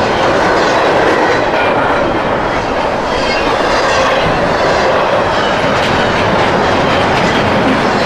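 Double-stack intermodal freight train passing close by: a steady rumble and rattle of loaded container well cars rolling on the rails, with faint wheel squeal now and then.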